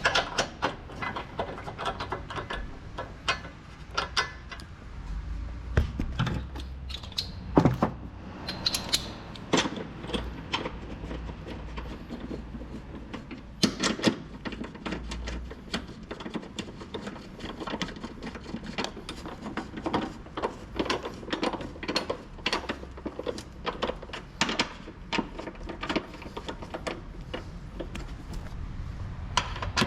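Hand tools, mostly a ratchet wrench with a socket, working on the front suspension member bolts under a car: quick, irregular metallic clicks and ratcheting, with a few louder knocks now and then.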